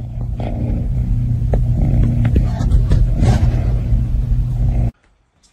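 A motor running with a steady low rumble and a few clicks over it, cutting off abruptly about five seconds in.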